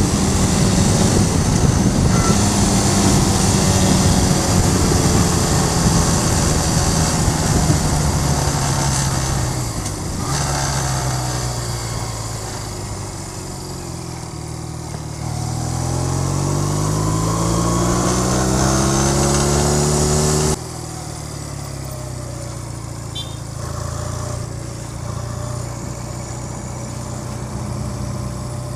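Cruiser motorcycle engine running under way, with wind noise on the microphone. The engine eases off about ten seconds in, then climbs steadily in pitch as it accelerates. It drops off suddenly a little after twenty seconds to a lower, steady run.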